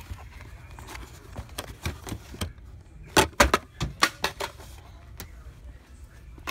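Clatter of packaged die-cast toy cars and cardboard boxes being handled on a store shelf: scattered clicks and knocks, with a quick run of louder knocks about three seconds in.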